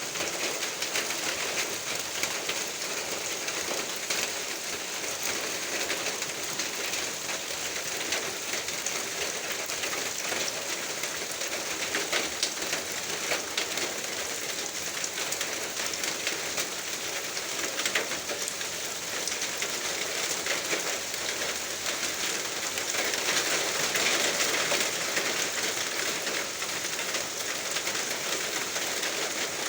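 Steady rain falling, a continuous hiss with a patter of individual drops striking surfaces, growing a little heavier near the end.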